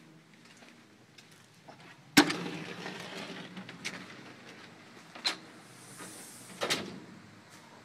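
A glass-panelled front door being opened and let go: a loud bang about two seconds in, a few smaller knocks, and another clack near the end.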